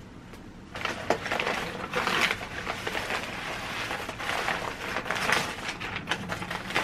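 Paper wrapping being pulled off and unfolded from a flower bouquet, rustling and crinkling in uneven surges. It starts about a second in, with a few sharp crackles.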